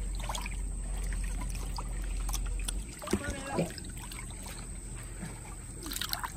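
Pool water lapping and sloshing around small floating plastic toy boats, with a low rumble under it that stops about halfway through and a brief pitched sound just after.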